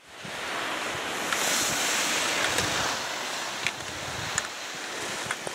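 Wind blowing on the microphone: a steady rushing noise that swells over the first second or two, with a few faint, sharp clicks scattered through it.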